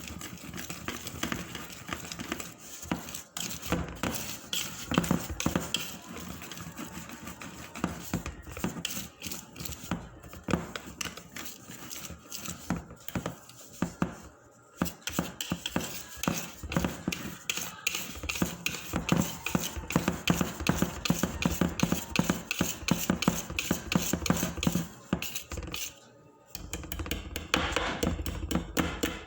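Batter being beaten by hand in a bowl: a fast, uneven run of clicks and taps from the utensil against the bowl, pausing briefly about halfway through and again near the end.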